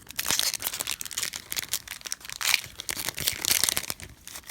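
Foil wrapper of a Pokémon trading card booster pack crinkling in the hands as it is opened, a dense run of crackles.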